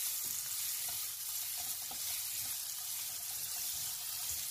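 Chopped onions sizzling steadily in hot oil and butter in a non-stick pan, stirred with a spatula, as they are sautéed until light pink.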